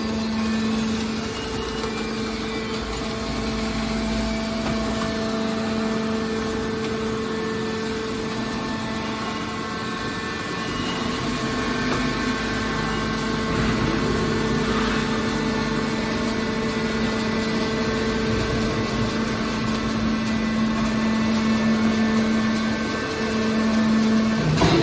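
Hydraulic power unit of a scrap metal baler running with a steady hum.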